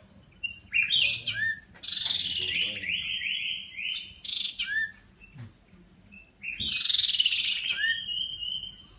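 Caged iora of the black-headed strain singing: three bursts of quick, high chattering and whistled notes separated by short pauses.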